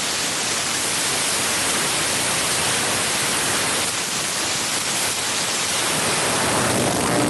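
Loud, steady hiss like static or white noise, even and unbroken, with no voice standing out above it.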